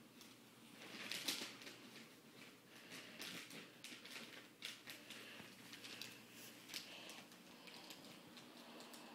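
Wrapping paper crinkling and rustling as it is folded and pressed around a gift box, in short irregular bursts, loudest about a second in.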